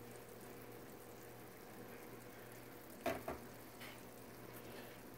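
Beef pieces faintly sizzling in a roasting pan inside a hot oven, over a steady hum. Two sharp clicks come close together about three seconds in.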